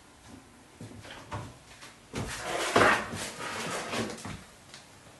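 Kitchen oven door being opened and a baking tray handled at it: a few light clicks, then a run of clattering with one louder knock about three seconds in.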